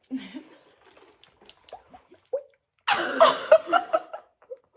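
Close-miked eating noises: faint chewing clicks, then about three seconds in a loud wet slurping, squelching noise lasting just over a second.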